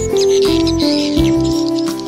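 Background music: a slow melody of held notes that step up and down in pitch, with high, short bird chirps mixed in above it.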